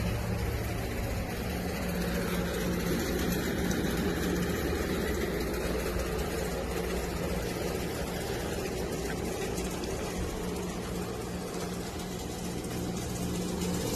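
A motor running steadily: an even low hum with a few steady tones.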